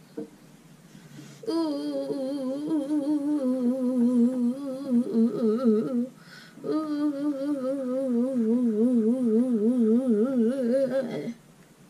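A boy humming two long phrases with a wobbling pitch, the first starting about a second and a half in and the second after a short break near the middle.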